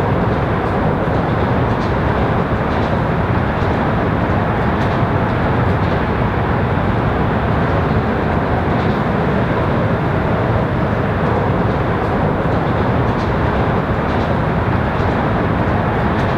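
Amtrak passenger train running, a steady rumble of wheels on rail with a few faint light ticks.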